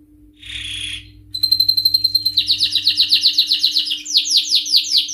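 Domestic canary singing. A short harsh note comes first, then a fast high trill begins just over a second in. The trill breaks into rapid repeated downward-sweeping notes that slow slightly near the end.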